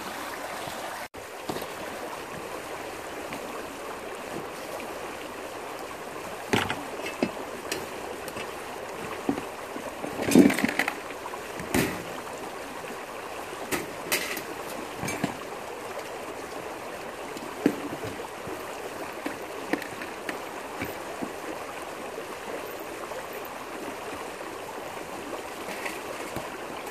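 Small stream rushing and splashing over rocks, a steady water noise, with scattered short knocks and clatters over it, the loudest about ten seconds in.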